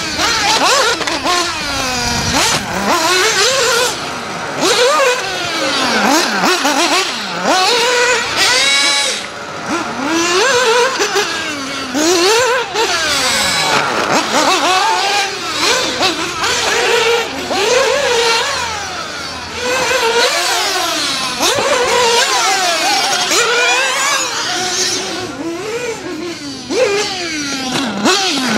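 Losi 8ight 1/8-scale nitro RC buggy's small two-stroke glow engine, high-pitched, revving up and down again and again as it is driven hard on a dirt track, the pitch rising on the throttle and falling off into corners and over jumps.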